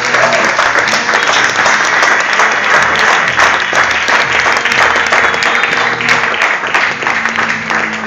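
Audience applauding, with many hands clapping densely, and music playing faintly underneath.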